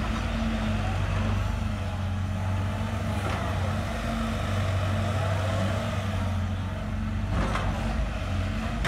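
Caterpillar 312F hydraulic excavator's diesel engine running steadily as the upper structure swings around and back, with a faint whine rising and falling in pitch in the middle.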